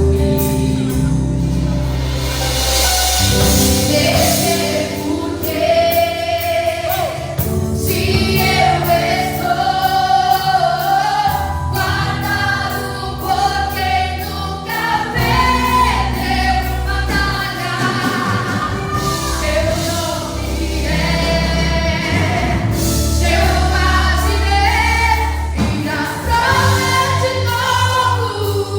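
Music with a group of voices singing over a heavy bass.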